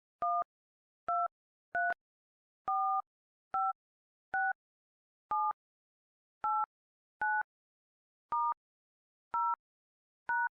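Phone dial-pad touch tones (DTMF): twelve short two-tone beeps, about one a second, each key a different pair of tones, running through the keypad in order from 1 to 9, then star, 0 and hash.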